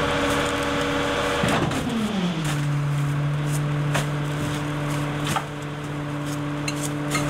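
Rear-loading garbage truck running its packer cycle: the engine runs at a raised speed, then its pitch drops to a lower steady speed about two seconds in. Several sharp clanks come from the packer and the trash along the way.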